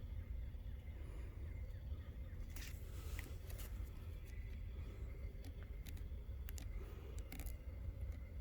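Footsteps of hikers on a woodland trail: irregular rustles and snaps of leaf litter and twigs over a low steady rumble.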